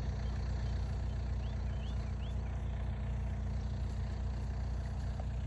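An engine idling steadily, a low even hum with no change in speed. Three short, high, rising chirps come about one and a half to two and a half seconds in.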